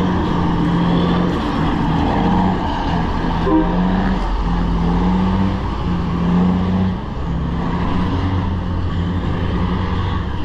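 Diesel dump truck engine running with a steady drone.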